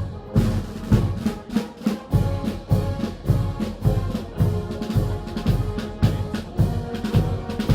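Marching band playing a march, the bass drum striking a steady beat about twice a second under held chords.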